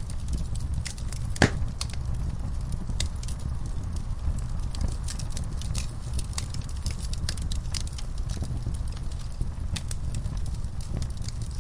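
Wood fire in a fireplace crackling: many scattered sharp pops and snaps over a steady low rumble, with one louder pop about a second and a half in.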